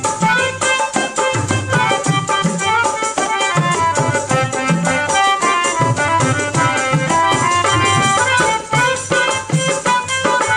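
Instrumental passage of a Chhattisgarhi folk song: a melody instrument playing over drums and percussion in a steady rhythm.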